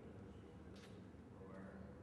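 Near silence: faint room tone with a low steady hum, and one brief faint rustle a little under a second in.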